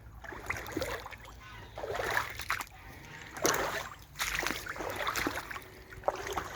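Water sloshing and splashing in irregular bursts as someone wades through a shallow brook in wellington boots.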